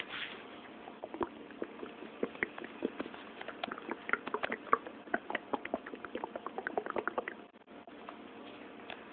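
Stomach gurgling: a quick run of small bubbling pops and squelches, several a second, that stops shortly before the end.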